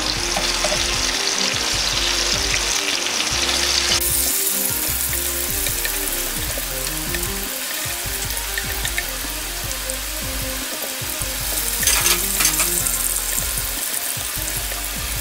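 Green onion and ginger frying gently in oil in a pan: a steady sizzle, with light clicks of chopsticks turning them about twelve seconds in. This is scallion oil being made, the aromatics simmered in oil on low heat. Soft background music runs underneath.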